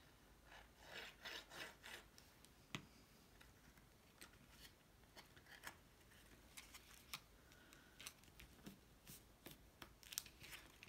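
Faint rustling and light ticks of cardstock being handled: a glued paper tab pressed down, then the paper box card folded closed and pressed flat. The rustling is strongest about a second in, with small ticks scattered after it.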